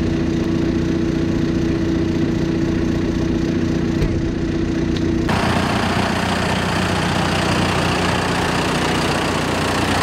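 John Deere tractor's diesel engine idling steadily. About five seconds in the sound changes abruptly to a noisier, hissier engine sound.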